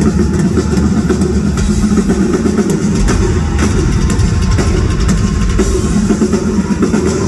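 Live rock drum solo on a full drum kit, dense fills over the drums and cymbals, with the bass drums pounding harder about three seconds in. Heard from the audience.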